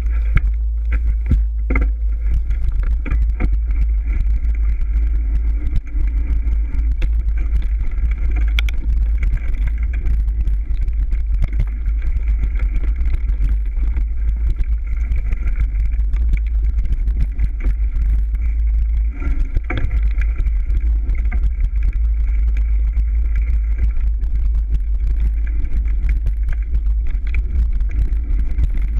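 Mountain bike riding fast over rough dirt singletrack, picked up by an action camera: heavy wind rumble on the microphone with constant rattling and clicking from the bike as it bounces over the trail.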